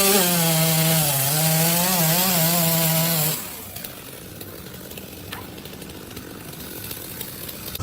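Power tool running at high speed, loud with a steady pitch that wavers slightly, cutting off after about three seconds into a quieter steady noise.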